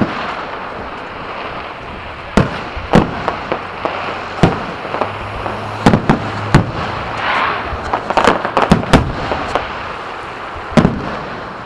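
Fireworks going off in a string of sharp bangs and pops, some coming in quick clusters, with crackling between them.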